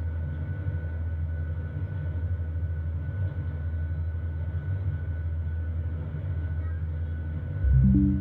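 Airliner cabin noise: a steady low rumble with faint constant whining tones above it. Near the end a short, louder low hum cuts in.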